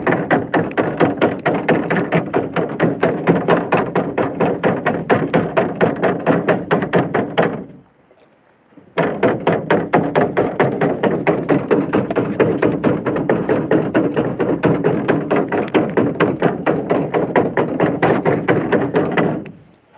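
Rapid, even knocking on the hull of a small outrigger fishing boat, roughly five knocks a second, in two long runs with a break of about a second near the middle. The boat is being banged to scare barred garfish and needlefish into a set net.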